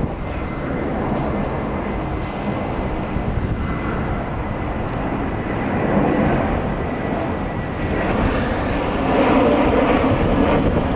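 Strong gusting wind rumbling on the microphone, growing louder about eight seconds in, with a faint steady high whistle through most of it.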